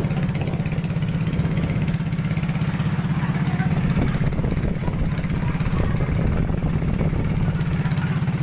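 Motorised outrigger boat (bangka) engine running steadily with a fast, even putter, towing a floating cottage.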